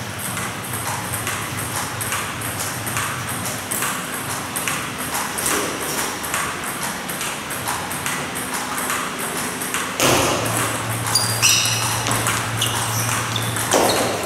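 Celluloid-style table tennis balls clicking off paddles and the table in a rally, about two hits a second. About two-thirds of the way through it gets louder, with a low steady hum and a few short high-pitched squeaks.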